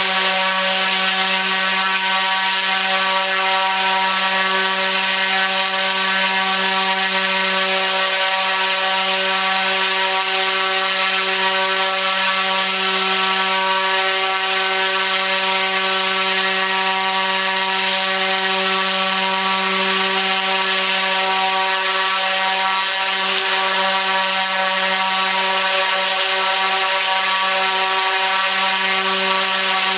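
T-Motor U13 100kV brushless motor spinning a 29-inch three-blade propeller at full throttle on 12S, held there for an endurance run. It makes a steady, unchanging drone: a strong low hum with evenly spaced overtones over a rushing hiss.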